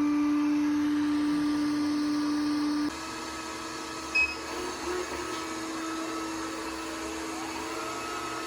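Window-cleaning robot's suction fan running with a steady droning whine. About three seconds in it gets quieter and a little higher in pitch, and a short high beep sounds about a second later.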